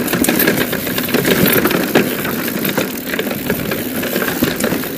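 Mountain bike riding fast down a dirt singletrack: a steady rumbling rush of tyres and wind noise, with frequent rattling clicks from the bike over bumps.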